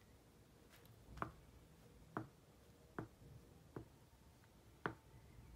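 Faint, sharp taps, about one a second, against a near-silent room.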